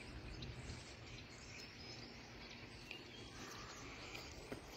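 Faint riverside ambience: a steady, even hiss of flowing water with faint chirps of birds or insects over it, and a small click near the end.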